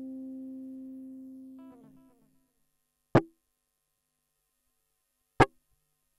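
Electric guitar chord ringing out through the mixer's delay effect and fading away within about two seconds, with a few faint note fragments as it dies. Then silence broken by two sharp clicks about two seconds apart, the loudest sounds here.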